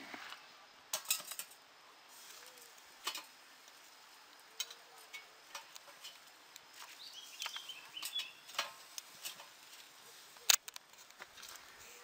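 Wood fire burning in a small wood-gas (gasifier) camping stove under a pot, giving irregular sharp crackles and pops, the loudest about ten and a half seconds in.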